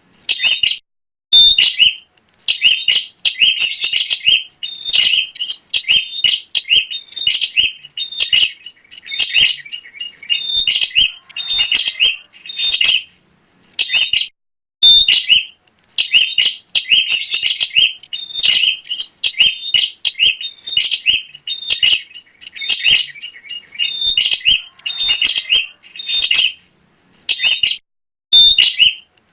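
Prinia (prenjak) singing energetically: loud bursts of rapid, high, sharp chirps and trills in phrases of one to three seconds, with short pauses between them.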